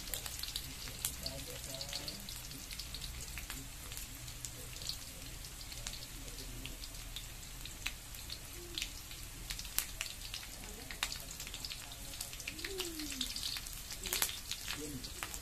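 Garlic, chillies and lemongrass frying in oil in a wok: a steady sizzle with scattered pops and crackles. Near the end a spatula stirs through them.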